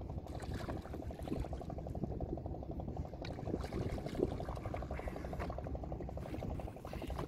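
River water splashing and sloshing as a man lowers himself off a wooden boat into the water and wades against the hull before ducking under, with short splashes scattered throughout.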